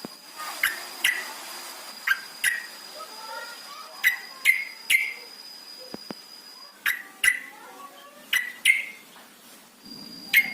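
Yellow-vented bulbul (trucukan) giving short, sharp calls, about a dozen in quick twos and threes. Behind them a thin, steady, high insect trill stops a little past halfway and returns near the end.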